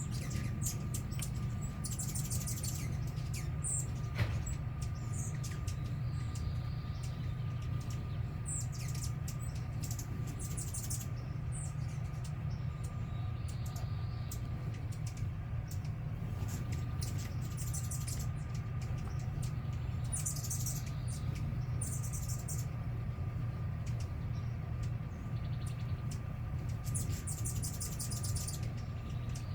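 Small birds giving short, high, rapid chirping trills of about a second each, repeated every few seconds, over a steady low hum.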